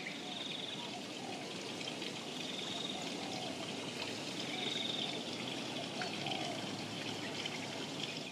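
Outdoor ambience: a steady hiss with faint bird calls and trills repeating through it.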